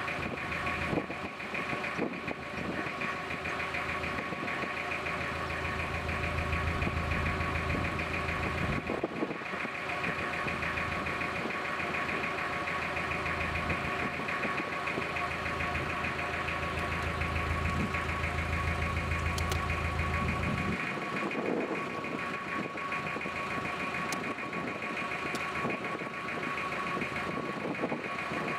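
Narrowboat diesel engine running steadily, with a deep low rumble that drops away about twenty seconds in while the engine keeps running.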